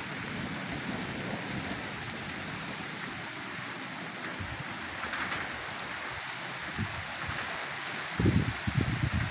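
Heavy rain falling, a steady hiss. About eight seconds in, a run of irregular low thumps comes in, louder than the rain.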